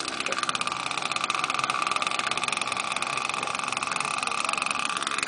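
Radio-controlled model airplane's OS 91 glow engine running at high revs, a steady high-pitched buzz with a fast even pulse.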